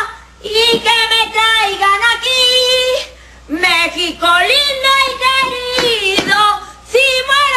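A woman singing in a high voice, holding long notes with vibrato in three phrases, broken by short pauses for breath.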